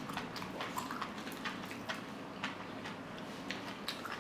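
A person eating close to the microphone: faint, irregular little clicks of chewing, several a second.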